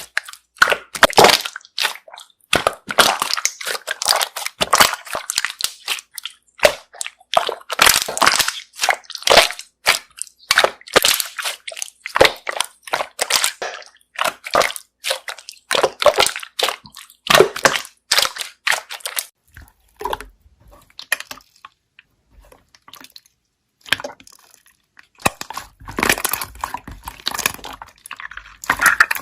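Slime being pressed and worked so that trapped air bubbles pop in quick, crisp crackles and clicks. The popping thins out a little over two-thirds of the way through, then picks up again near the end.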